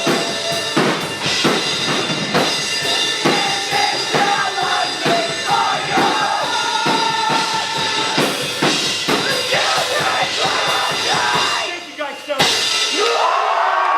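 Metal band playing live, with the drum kit hitting hard and steadily under distorted guitars. The music breaks off with a final hit about twelve seconds in, and crowd cheering and whistling follow near the end.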